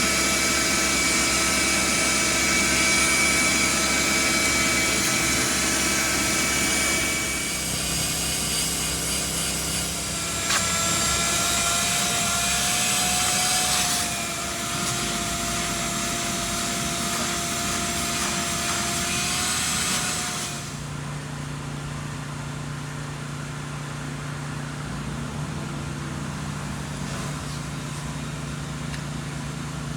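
A motor-driven machine running steadily with a whine. The whine shifts pitch a few times, then drops to a quieter, lower hum about two-thirds of the way through.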